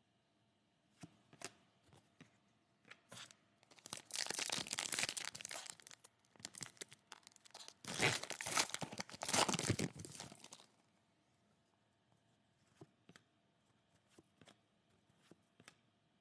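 Plastic trading-card pack wrapping being crinkled and crumpled in two long bouts, with light clicks and taps of cards being handled before, between and after.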